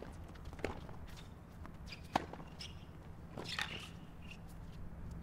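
Tennis rally: sharp racket hits on the ball, a second or so apart, the loudest about two seconds in, over a low steady background hum.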